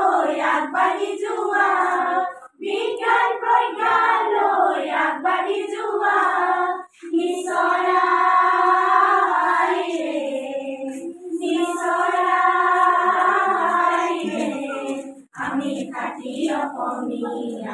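A group of women and girls singing a song together in phrases of about four seconds, with short breaks for breath between them.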